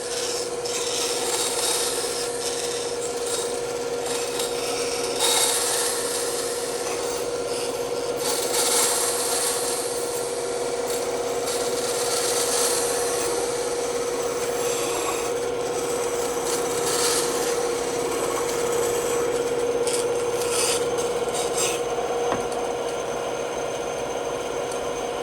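Bandsaw running with a steady hum while its blade cuts wood, the cutting noise swelling and easing irregularly.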